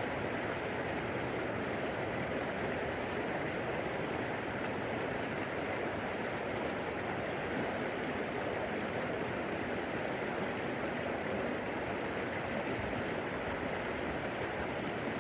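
A creek's water running steadily.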